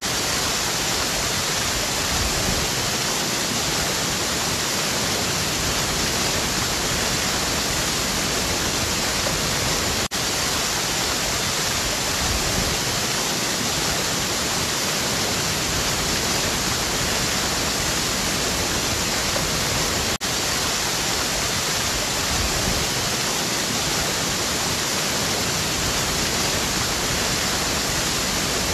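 Waterfall: a steady rushing hiss of falling water, with two brief dropouts about 10 and 20 seconds in.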